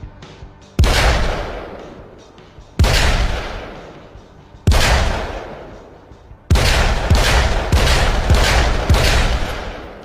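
Smith & Wesson Model 629 Stealth Hunter .44 Magnum revolver firing: three single shots about two seconds apart, then a quicker string of about five shots, each followed by a long echoing decay.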